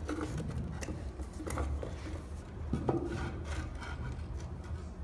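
Rough stone fountain pieces scraping and knocking together as the top section is worked down into the basin over the pump, with sharper knocks about one and a half and three seconds in, over a low steady hum.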